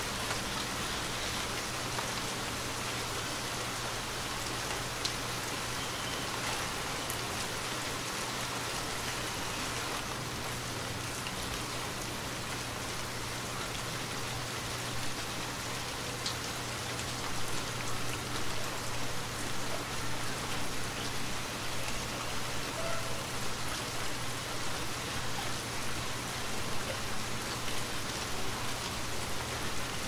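Steady rain falling, a dense even hiss with a few single drops ticking through it; from a little past halfway the level swells and ebbs more unevenly.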